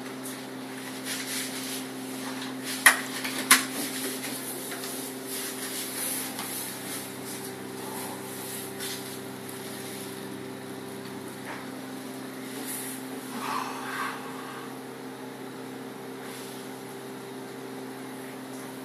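A child's swim cap being handled and stretched over a person's head and face: rubbing and stretching noises, with two sharp snaps a little over half a second apart about three seconds in, over a steady low hum.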